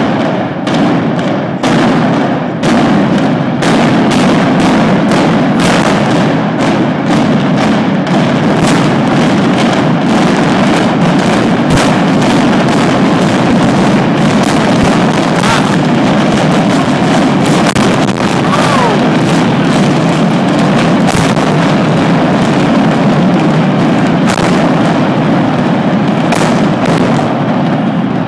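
Very loud, continuous barrage of explosive blasts and cracks from the demolition charges imploding Texas Stadium, mixed with fireworks, going on without a break.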